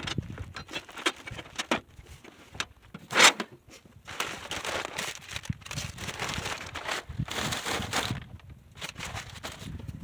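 Cardboard box and packing material being handled while parts are pulled out of the box: irregular rustling, scraping and crinkling with scattered clicks and knocks, the loudest a sharp knock about three seconds in.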